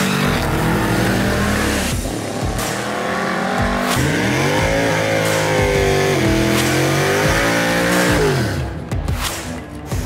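Drag race cars at full throttle: a hard launch, then a vintage Ford coupe hot rod's engine revving up and down repeatedly during a burnout with the rear tyres spinning. The engine note falls away near the end.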